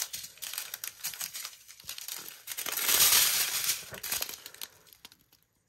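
Small plastic bags of diamond painting drills crinkling as they are handled and laid down, with a louder stretch of rustling about halfway through.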